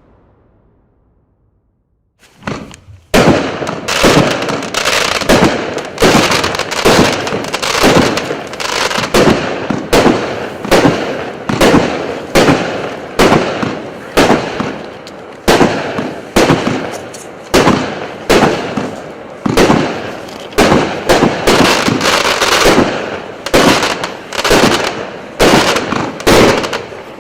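A 30-shot consumer fireworks cake with 0.8-inch tubes firing. After about two seconds of near silence it shoots its charges one after another, roughly one sharp report every 0.8 s, each dying away before the next.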